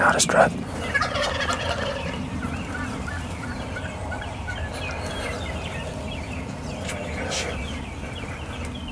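Merriam's wild turkeys calling in a flock: a string of many short, quick calls with gobbling, loudest just after the start and again about seven seconds in.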